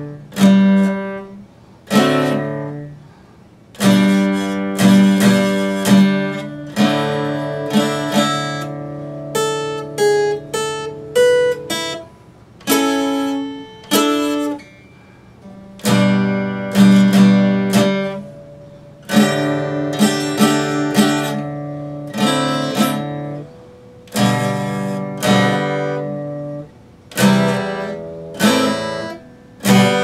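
Epiphone acoustic-electric guitar played solo: chords struck and left to ring, mixed with single picked melody notes, in phrases of a second or two with short gaps between.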